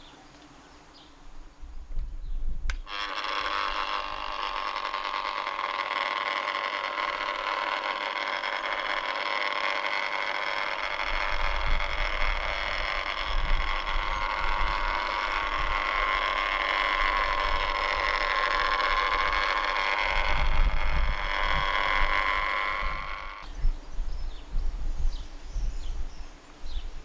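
Electric rotary polisher buffing oxidised fibreglass gelcoat with cutting compound. Its motor starts about three seconds in, runs steadily with a stack of even tones whose pitch wavers slightly, and is switched off suddenly about three-quarters of the way through.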